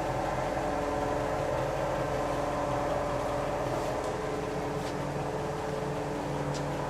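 An engine running steadily at idle, with a couple of faint clicks in the second half.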